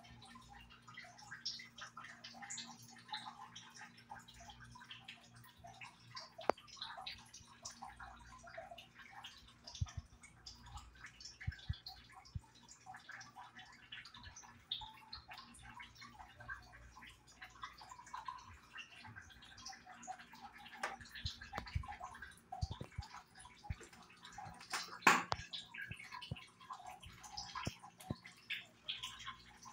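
Quiet kitchen room tone: a steady low hum with scattered faint ticks and crackles, and one sharper click about 25 seconds in.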